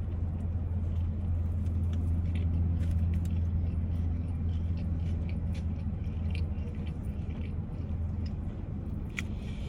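Steady low hum of a car idling, heard from inside the cabin, with faint scattered clicks of chewing and mouth sounds.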